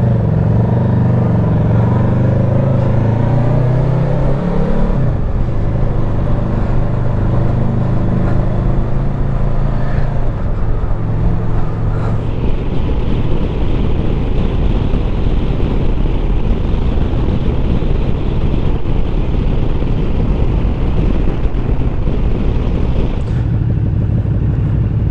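Honda VFR800F's V4 engine pulling the motorcycle along on the road, rising in pitch over the first few seconds and dropping about five seconds in, then running steadily with a constant rush of wind noise.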